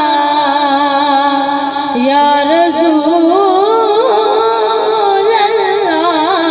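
Male naat reciter singing into a microphone: a long held note that slides down, then, about two seconds in, a new phrase with quick wavering ornaments.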